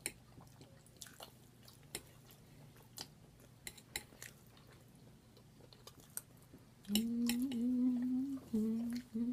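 Close-up wet chewing and lip-smacking with scattered sharp clicks of cutlery on a plate. About seven seconds in, someone starts humming a few held notes through closed lips.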